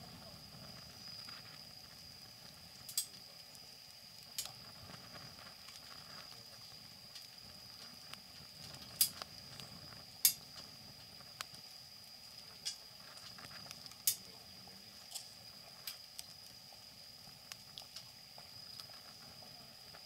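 Wood fire crackling: irregular sharp pops, the loudest about nine and ten seconds in, over a faint steady high whine.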